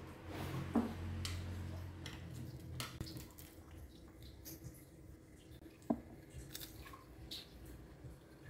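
Eating sounds: quiet chewing, with small crackles and clicks as crispy fried tilapia is pulled apart with chopsticks and fingers. Two sharp taps stand out, about a second in and near six seconds.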